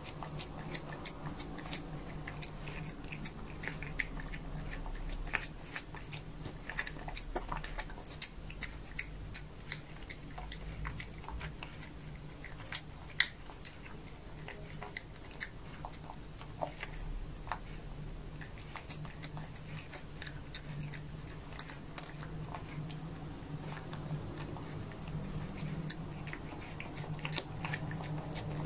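A cat chewing and biting crumbly food close to the microphone: a dense, irregular run of small wet clicks and smacks as it eats off a hard surface.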